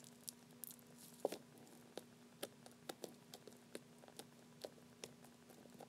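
Stretchy slime being poked and pressed with fingertips, giving a run of faint small clicks and pops about three a second, one a little louder about a second in.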